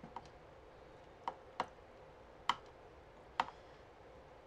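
A handful of light, sharp clicks or taps, irregularly spaced about a second apart.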